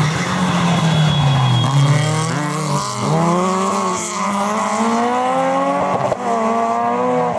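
Two rally cars passing in close succession on wet tarmac, their engines revving hard. The pitch climbs and drops with gear changes, with sharp shifts about three seconds and six seconds in, over the hiss of tyres on the wet road.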